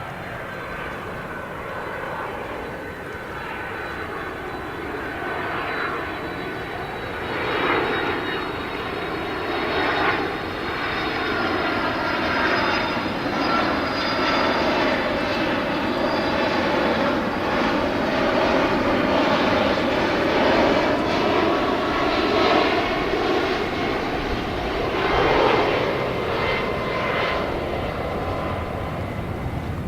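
Jet airliner's turbofan engines running: a broad rush with a few steady high whining tones on top, slowly growing louder through most of the stretch.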